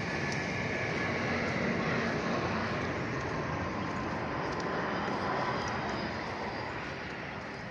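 Jet airliner passing overhead: a steady roar with a faint whine that slowly falls in pitch, fading near the end.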